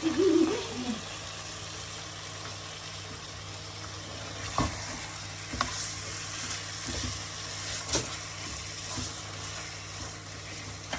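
Chicken pieces and spices sizzling in hot oil in a pot as a chicken bhuna cooks. They are stirred with a spoon, which clicks against the pot a few times.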